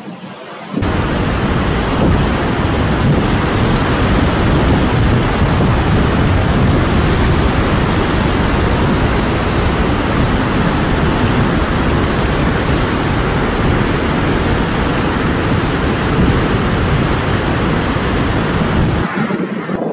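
Heavy ground-swell surf breaking over rocks and a sea wall: a loud, steady roar of churning water. It starts abruptly about a second in and cuts off just before the end.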